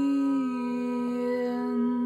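A singing bowl rings with a steady held tone, and a woman hums a low sustained note along with it. The hummed note drops slightly in pitch about half a second in.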